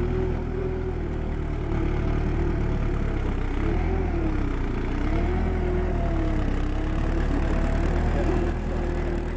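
The 48 hp Kubota engine of a Bryce Suma HD180 tracked post driver running steadily while the machine is driven on its tracks. A whining tone over the engine dips and rises in pitch about halfway through.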